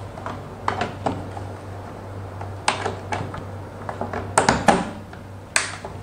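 Plastic clicks and knocks of power plugs and cables being handled and plugged in, an AC cord going into a PoE injector and a power strip. A series of sharp clicks, the loudest in the second half, over a steady low hum.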